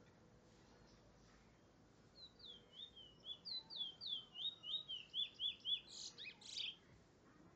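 Caged Trinidad bullfinch (chestnut-bellied seed finch) singing: a run of quick whistled notes starting about two seconds in, rising in loudness and ending in a louder, rougher phrase near the end.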